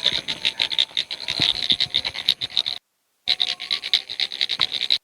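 A dense chorus of frogs calling at night, many rapid overlapping croaks, cutting out completely for about half a second near the middle.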